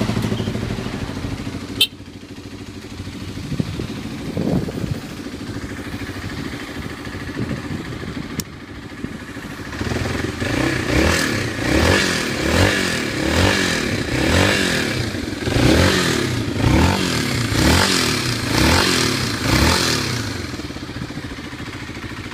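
Kawasaki D-Tracker 250's single-cylinder four-stroke engine idling in neutral, with a sharp click about two seconds in. About halfway through, the throttle is blipped about ten times, roughly a second apart, each rev rising and falling, and then the engine settles back to idle.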